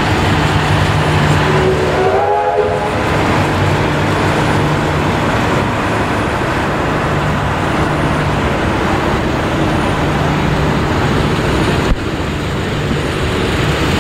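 Heritage passenger carriages rolling slowly past on their wheels and rails, a steady rumble. A short pitched tone sounds about two seconds in, and there is a single sharp click near the end.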